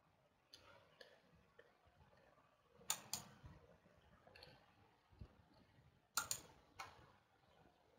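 Near silence with a few scattered short clicks, the loudest pairs about three seconds in and again about six seconds in.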